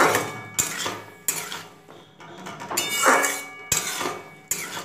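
A flat metal spatula scraping and clinking against a metal kadai while stirring thick tomato-tamarind chutney. There are several uneven strokes, with the loudest, a short metallic ring, about three seconds in.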